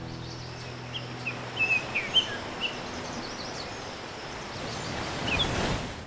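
Small birds chirping in short bursts over a steady outdoor ambience, while the last held chord of the music dies away in the first few seconds. The background swells slightly near the end, then fades out.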